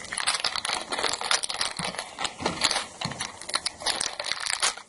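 Plastic bags of Lego pieces crinkling and rustling as they are handled, with a dense patter of small crackles.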